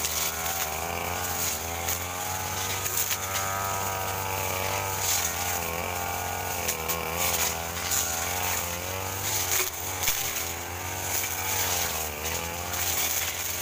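Backpack brush cutter engine running under load, its pitch rising and falling as the blade cuts through ferns and undergrowth, with scattered sharp ticks.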